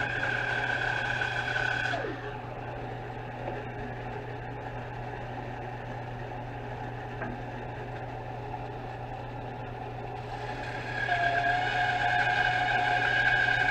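Electric power saw running with a steady high whine, switched off about 2 s in and winding down, then started again near the end, its whine rising as it comes up to speed, over a low steady machine hum.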